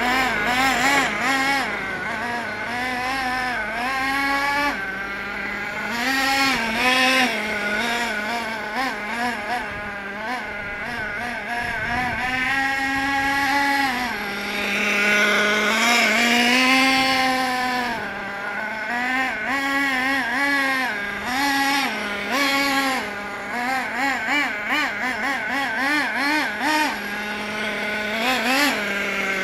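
Glow-fuel (nitro) engine of a Hot Bodies Lightning GT radio-controlled car, revving up and down over and over as the car is driven, accelerating and backing off.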